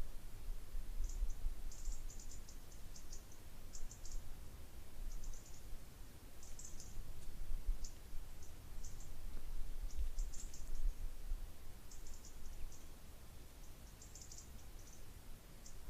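Insects chirping in short, high, buzzy clicking bursts, about one every second with irregular gaps, over a steady low rumble.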